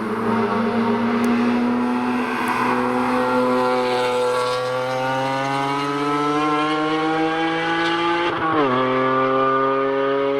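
BMW E46 M3 accelerating hard, the engine's pitch climbing steadily for several seconds, then dropping sharply at an upshift about eight seconds in and climbing again.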